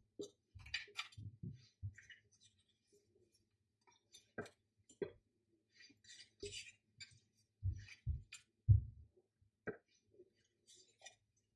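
Tarot cards handled one at a time: soft slides and light clicks of card on card as each card is drawn off the deck, with occasional dull thumps of hand and cards, the loudest near the end.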